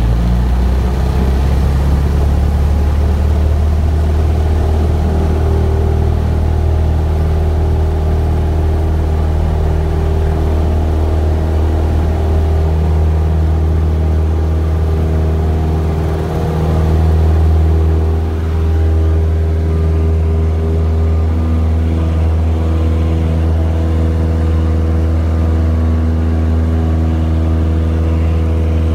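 A single-engine Cessna's piston engine and propeller running steadily at takeoff power, heard from inside the cabin through the takeoff roll and climb-out. There is a brief swell in loudness about two-thirds of the way through.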